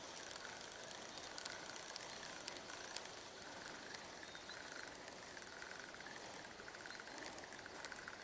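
Spinning reel being cranked in a slow, even retrieve: a faint whirring that swells and dips about once a second, with light clicks.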